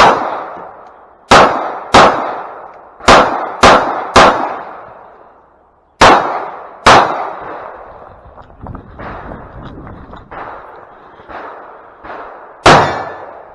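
Gunshots from a competition course of fire: eight loud shots at uneven spacing, mostly in quick pairs over the first seven seconds. After a gap with fainter sharp clanks, a last shot comes near the end.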